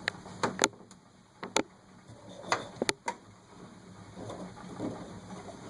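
A quick series of sharp clicks and knocks, about eight in the first three seconds, over a faint steady low hum.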